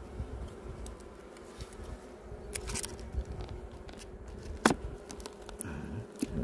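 Honey bees buzzing in a steady hum over an open hive, while the plastic wrap of a bee-feeding cake pack crackles as it is pressed onto the frame top bars. A single sharp crackle about three-quarters of the way through is the loudest sound.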